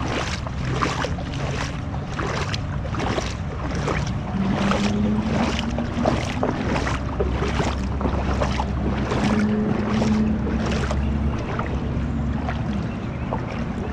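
Heavy rain with a steady low rumble underneath, crossed by a regular swish about twice a second that stops near the end.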